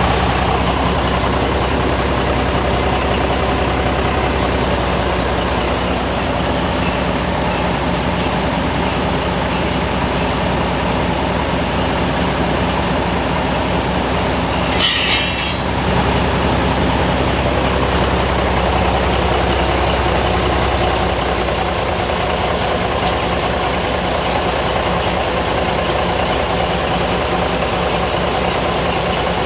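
Heavy diesel engine running steadily, with a brief hiss about halfway through.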